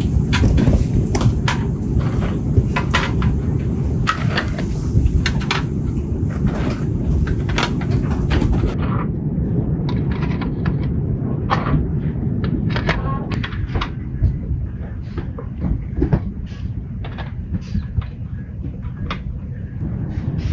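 Dry tea biscuits clicking and tapping as they are set down one by one on a metal baking tray, over a steady low rumble.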